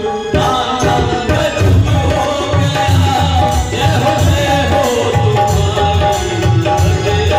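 Instrumental interlude of a live Hindu devotional bhajan: hand drums keep a steady rhythm under long held melody notes.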